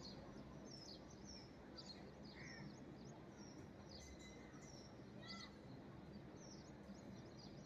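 Birds chirping faintly: short, high, falling chirps about two a second, over a low steady background hum.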